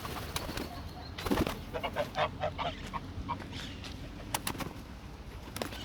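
Geese honking in a run of short calls, with a few sharp clicks among them.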